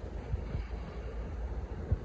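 Low rumble of a handheld camera on the move, with two dull low thumps about a second and a half apart, like footsteps on a concrete floor.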